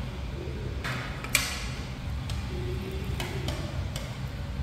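Metal serving tongs clicking and clattering against stainless steel buffet trays: a handful of sharp clicks, the loudest just over a second in, over a steady low background hum.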